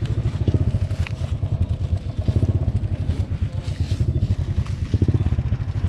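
A small motorcycle-type engine running steadily with a low, pulsing rumble. A few knocks and scrapes of a blade chopping into hard dirt come through it.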